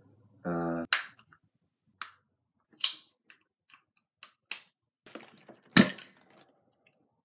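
A Ramune marble-soda bottle being opened: a run of sharp plastic clicks as the opener is handled and set on the neck, then a loud pop about six seconds in as the glass marble is pushed down into the bottle, followed by a brief fizzing hiss.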